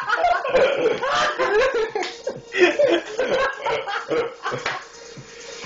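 People laughing in repeated bursts.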